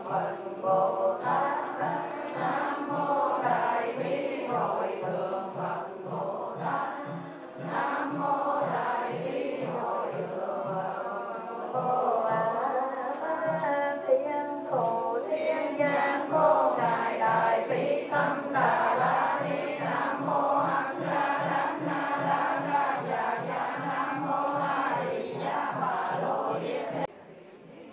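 Vietnamese Buddhist devotees, men and women, chanting a sutra in unison over a steady low knock about twice a second that keeps time. The chanting and knocking stop suddenly about a second before the end.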